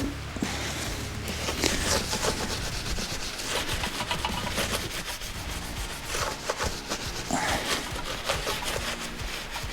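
Irregular rubbing and scraping of hands working at a motorcycle wheel rim, pressing a stick-on balancing weight and tape onto it.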